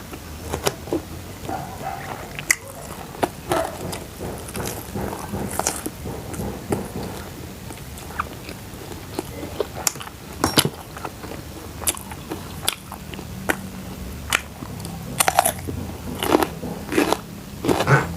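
A person biting and chewing crunchy food close to the microphone: irregular sharp crunches, coming thicker near the end.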